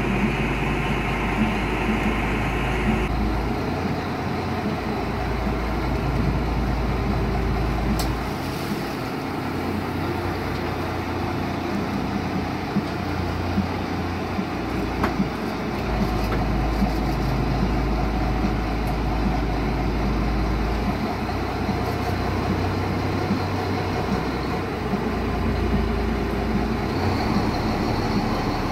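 Tour boat's engine running under way, with water rushing past the hull and wind buffeting the microphone in gusts.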